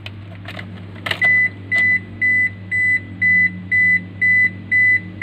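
A car's dashboard warning chime beeping repeatedly at one high pitch, a little over two beeps a second, after the ignition key is inserted and turned to ON. A few light clicks of the key going into the ignition come just before the beeping starts.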